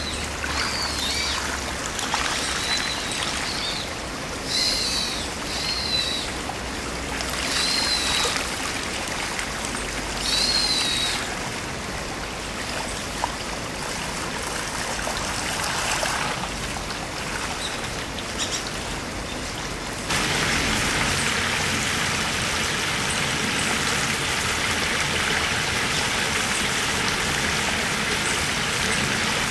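Shallow stream water rippling over a gravel bed, with a bird calling in short repeated chirps through the first third. About two-thirds of the way through, the water sound changes to a steadier, louder rushing hiss.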